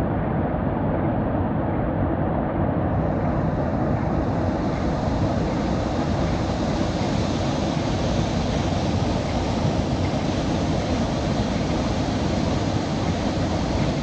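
Waterfall pouring into a rocky pool: a steady, unbroken rush of falling water.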